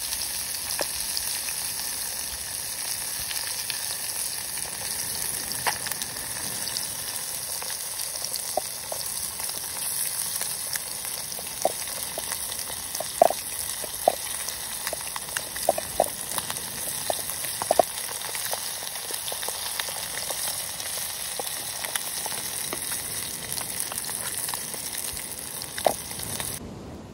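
Marinated fish pieces frying in oil in a small kadhai: a steady high sizzle with scattered pops and crackles of spitting oil. The sizzle cuts off abruptly just before the end.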